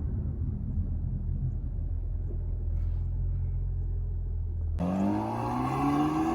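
Haval H6 GT engine and exhaust with a steady low rumble near idle. About three-quarters of the way in it switches abruptly to the engine revving, its pitch rising steadily.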